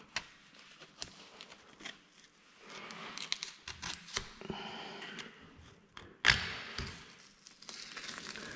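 Boning knife cutting and scraping along the bone of a raw pork leg, kept close to the bone membrane, with soft tearing of meat, scattered clicks and a louder knock about six seconds in.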